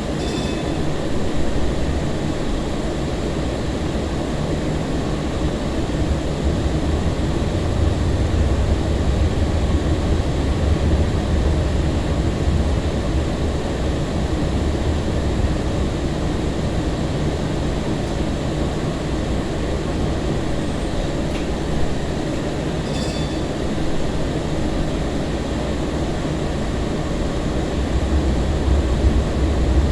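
Breda LRV3 light-rail car running along the track, heard from inside the car: a steady rumble of wheels and running gear that swells louder twice. A brief faint click comes about 23 seconds in.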